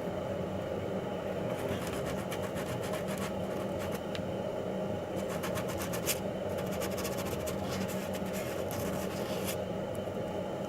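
Sandpaper rubbing back and forth over the edges of a freshly cut 3-inch hole in the bottom of a truck's fuel tank, smoothing them so the fuel sump seals. The scratching comes in runs of quick strokes with short pauses between them, over a steady hum.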